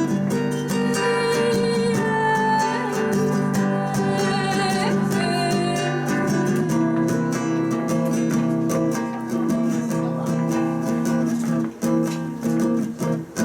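Live band music led by a strummed acoustic guitar, a song's instrumental passage between verses, with a wavering melody line held over the chords during the first half.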